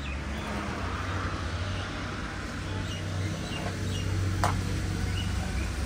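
Outdoor ambience of small birds chirping now and then over a steady low rumble, with one sharp click about four and a half seconds in.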